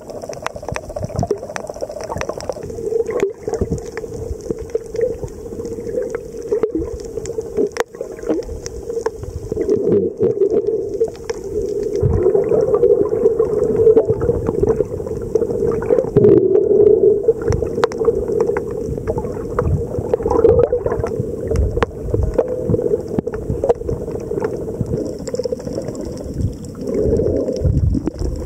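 Underwater ambience picked up by a submerged camera: a steady drone that swells and fades, with scattered sharp clicks and low thumps throughout.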